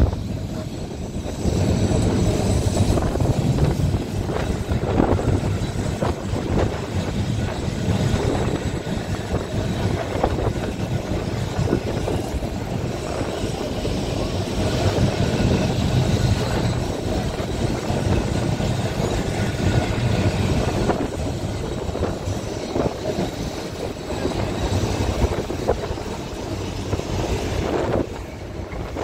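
Blackpool boat tram running along the track: a steady rumble of wheels and running gear with occasional clacks and rattles, with wind rushing over the open tram.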